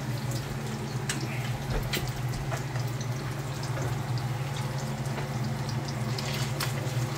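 Eggs frying in bubbling oil in a stainless steel pan, crackling and spitting irregularly over a steady low hum.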